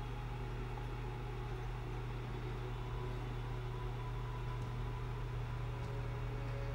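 Steady low hum from a motor or electrical equipment, with a couple of faint ticks near the end.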